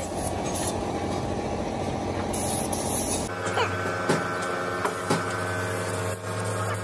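Paint spray gun hissing in short bursts over steady workshop and truck-yard noise. About three seconds in the sound changes abruptly to a steady mechanical hum with a few sharp knocks.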